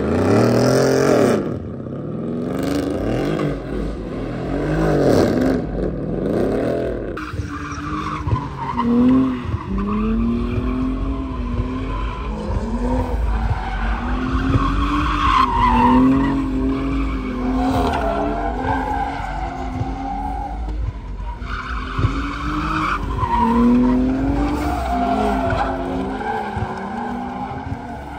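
A car drifting: its engine revs up and down in repeated sweeps for the first several seconds, then the tyres squeal in long, wavering tones over the engine.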